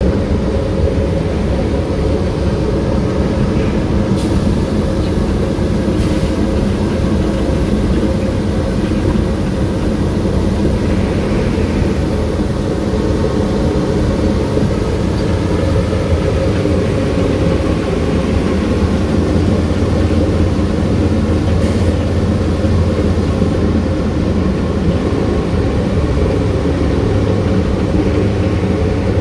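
Ciber UACF 19 P2 Advanced mobile asphalt plant running with its burner lit: a steady, loud low machinery drone.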